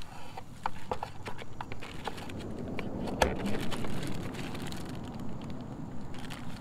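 Handling noise from T-bar bungee cords and their packaging: scattered light clicks and rustling, with one sharper click a little past three seconds in.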